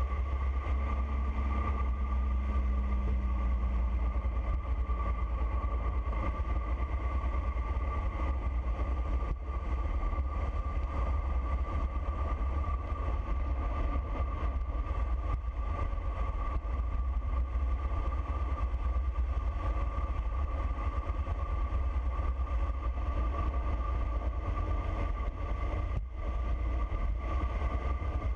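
Wind noise on the microphone of a bike-mounted camera as a road bike descends at high speed: a steady heavy rumble with a faint steady whistle above it.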